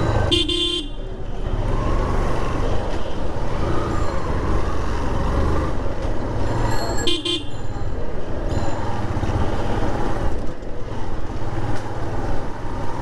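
City street traffic: engines rumbling steadily, with two short horn honks, one just after the start and another about seven seconds in.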